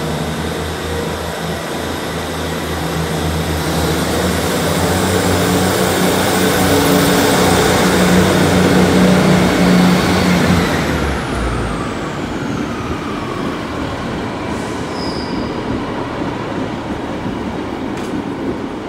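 A Class 158 and Class 150 diesel multiple unit pair pulling out of the station, their underfloor diesel engines working hard. It builds to its loudest a little past halfway through, then fades as the train moves away.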